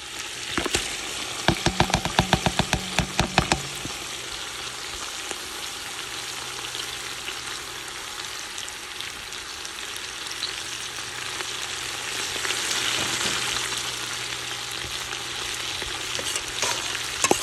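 Seasonings and meat sizzling steadily in a hot cooking pot. In the first few seconds there is a quick run of knocks, about six a second.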